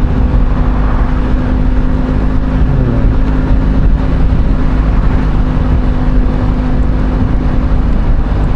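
Motorcycle engine running steadily at low road speed, with wind and road noise on a wet road.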